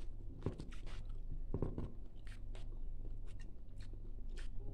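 Eating by hand: chewing and small clicks and taps of fingers working food on a plate, over a steady low hum.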